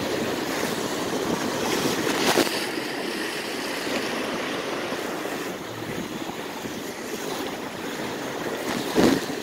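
Steady rushing of wind and surf on an ocean beach, with wind buffeting the phone's microphone.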